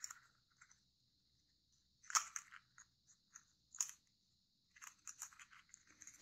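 Thin kami origami paper crinkling and crackling as fingers fold and crease a thick stack of layers. The crackles come short and scattered, loudest about two seconds in and again near four seconds.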